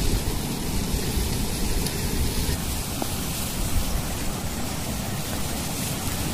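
Wind rumbling unevenly on the microphone over a steady hiss.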